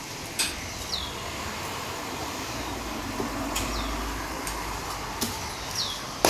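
Steady background hum with a few light clicks and short falling squeaks, then near the end a single sharp chop of a cleaver through roast chicken onto a wooden chopping board.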